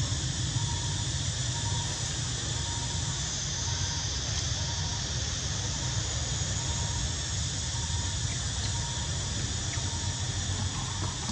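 Steady outdoor background noise: an even hiss over a low rumble, with a faint high note repeating about once a second.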